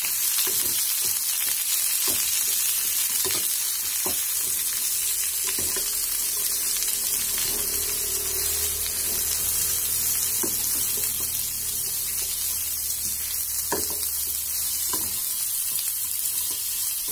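Sliced and shredded carrots sizzling in hot mustard oil in a metal pan, stirred and tossed with a wooden spatula that scrapes and knocks against the pan every second or so.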